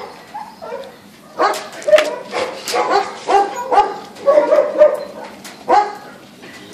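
Dogs barking in a quick run of about ten barks, starting about a second and a half in, with one longer, drawn-out call in the middle.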